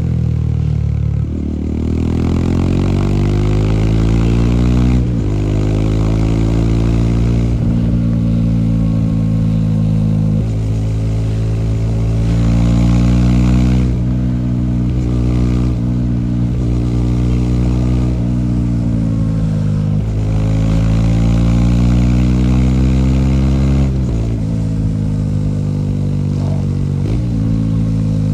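Bajaj Dominar 400's single-cylinder engine and exhaust pulling under throttle while ridden. The pitch climbs steadily and then drops suddenly about six times, as with gear changes.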